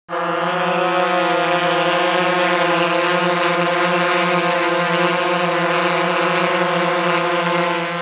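Quadcopter drone's propellers spinning in flight, a loud steady whine that holds one pitch and fades out near the end.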